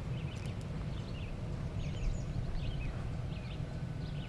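Songbirds chirping in short, quick notes, several in a row, over a steady low rumble.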